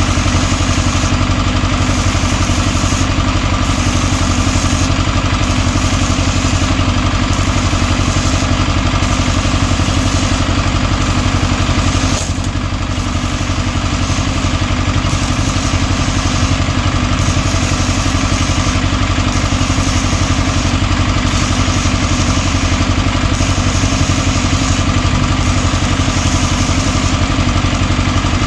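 An engine running steadily at a constant speed, with a brief drop in level about twelve seconds in.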